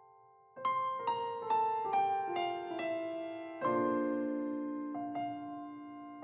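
Background piano music. After a short pause, single notes begin about half a second in and step downward a few per second. A fuller chord sounds about three and a half seconds in.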